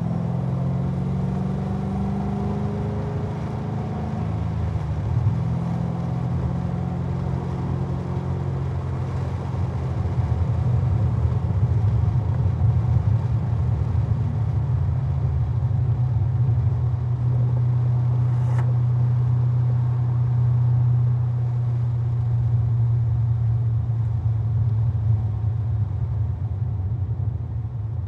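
2011 Corvette Z06's 7.0-litre LS7 V8 running hard on a track lap, heard from outside the car at the front with wind rush. Its pitch climbs through the first few seconds, then from about ten seconds in it is louder and holds a steady drone down the straight, easing slightly near the end.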